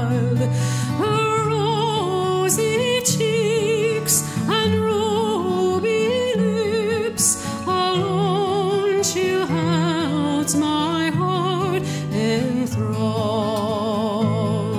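Background music: a slow melody in long held notes with a wide vibrato over sustained low accompaniment notes.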